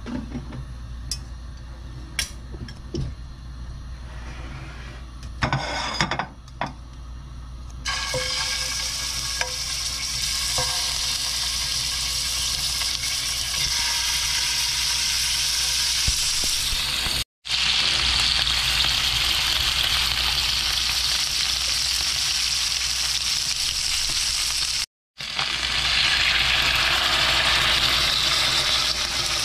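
Washed chicken pieces sizzling in hot cooking oil in a nonstick wok. The sizzle starts about eight seconds in, after a few light clicks of handling, and then holds steady apart from two abrupt short breaks; near the end water is poured into the hot pan.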